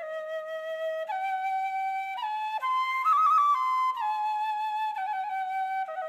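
Background music: a solo flute plays a slow melody of held notes. It climbs in steps to its highest and loudest notes, with a quick trill, about three seconds in, then steps back down.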